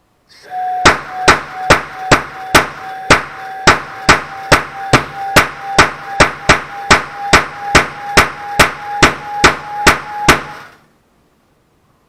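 Small propane noise cannon with a spark-ignited initiator chamber and a spiral-wrapped barrel, firing repeatedly under a held command: about two dozen sharp bangs at roughly two and a half a second. A steady hiss with a faint thin whistle runs under the shots, beginning just before the first bang, and everything stops together near the end.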